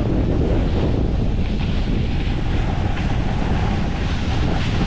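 Heavy wind buffeting on a camera microphone carried while sliding down a snowy slope, with the steady rush of the ride over snow beneath it.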